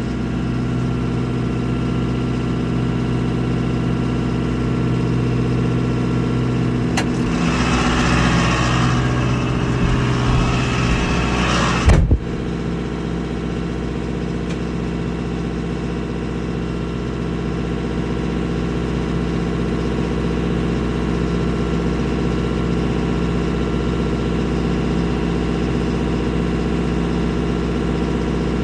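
A vehicle engine running steadily at a low drone. Partway through, a rushing noise builds for a few seconds and ends in a sharp knock, after which the engine's tone changes and it runs on steadily.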